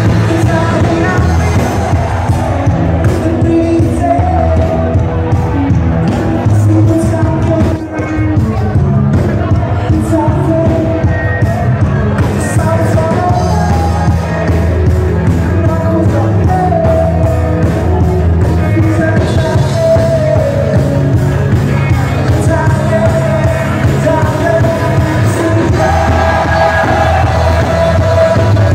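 Live band playing loud pop-rock with a lead singer, heard from within the crowd in a large hall.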